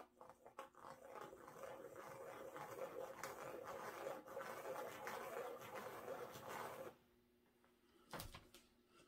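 A household pet's drawn-out vocal cry, wavering for about six seconds and then breaking off, with a short burst of it near the end.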